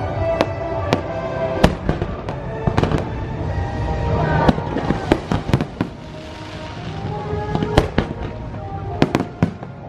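Fireworks show: sharp bangs of bursting shells at irregular intervals, several a second at times, with a crackling hiss swelling around the middle, over music playing along with the show.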